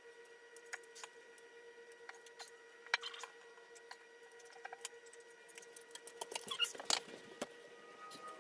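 Scattered small clicks, taps and scrapes of things being handled, a cluster of them about three seconds in and a busier run near the end, over a faint steady electrical hum.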